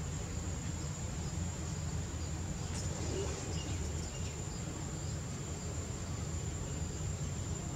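Steady outdoor ambience: a single high-pitched insect trill holding one even tone throughout, over a low steady rumble.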